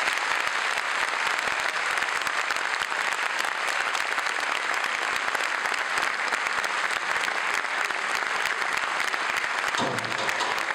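Audience applauding, a dense steady clapping. Music starts up again near the end.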